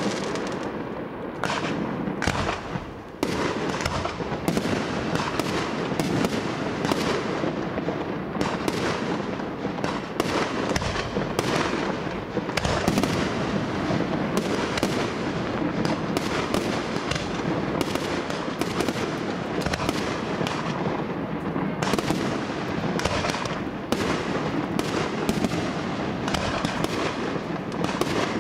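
Fireworks display: many shells bursting in quick, continuous succession, bang after bang with no real pause.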